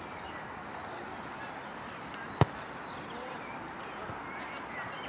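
A football kicked once, a single sharp thud about two and a half seconds in, over faint distant shouts from the pitch. A cricket chirps steadily in the background, about two short high chirps a second.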